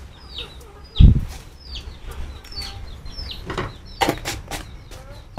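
Chicks peeping over and over, short high calls that fall in pitch, about two a second. A loud thump about a second in and a few sharp clicks around four seconds.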